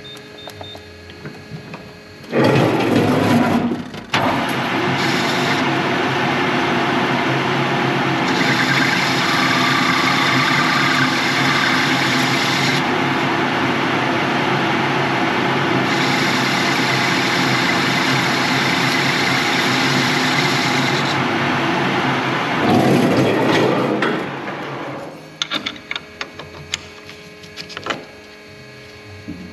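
A metalworking machine tool starts up, runs steadily for about twenty seconds and then runs down, followed by a few clicks near the end. A higher hiss comes in twice over the running sound.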